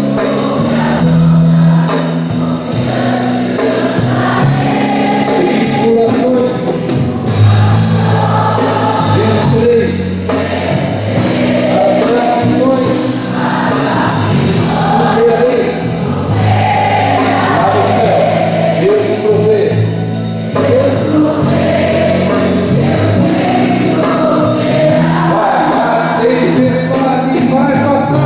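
Group of voices singing a Christian worship song in chorus over instrumental accompaniment with held bass notes and a steady beat.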